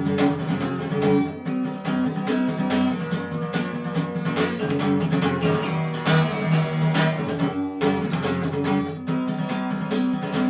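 Instrumental break in a song: acoustic guitar strumming chords.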